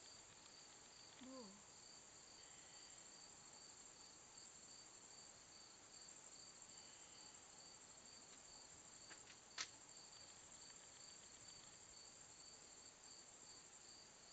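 Faint, steady, high-pitched insect chirring with a regular pulsing chirp running through it. About a second in there is a short call that falls in pitch, and near the middle a single sharp click, the loudest sound.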